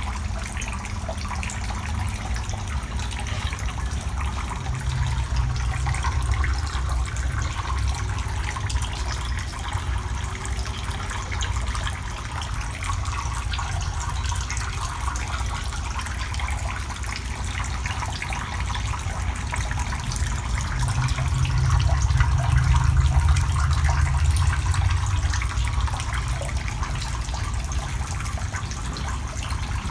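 Water running and splashing steadily in a shallow eel tank, over a steady low rumble that swells about two-thirds of the way through.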